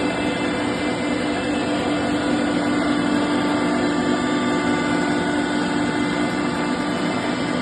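Cone crusher running steadily on its test run after an overhaul: a constant mechanical hum with several steady tones over an even rumbling noise.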